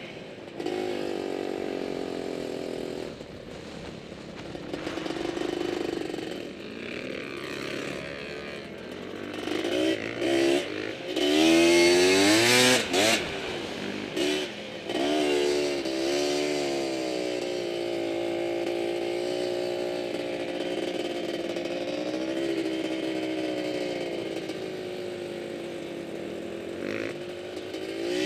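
Quad (ATV) engine running under the rider in the sand, its pitch rising and falling with the throttle. Several quick revs come near the middle, then it settles to steadier running.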